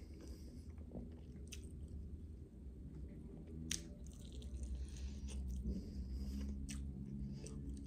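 Close-up eating sounds of a roast chicken drumstick with crispy skin being bitten and chewed: wet chewing with several sharp crunchy clicks, over a low steady hum.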